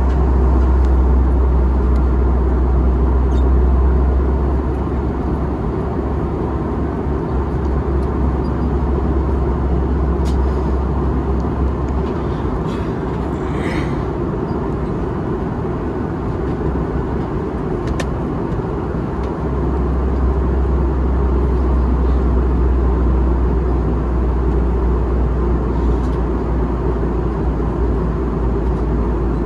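Airbus A321 cabin noise in flight: a steady rush of airflow and jet engines with a deep rumble underneath that eases off in the middle and comes back about 20 seconds in. A few faint clicks are heard over it.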